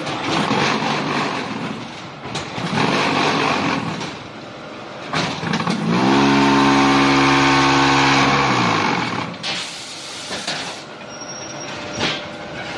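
Hydraulic automatic concrete block making machine working through a moulding cycle: hissing and clattering, then a loud steady hum of about three seconds that rises at the start and sinks in pitch as it stops, typical of the vibrators compacting concrete in the mould. Clanks and knocks follow as the mould moves and the blocks are pushed out.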